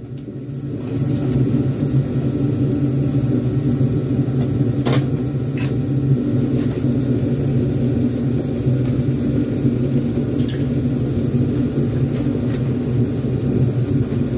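A steady low mechanical hum runs throughout, with a few brief sharp clicks of metal parts being handled as a snowblower is taken apart.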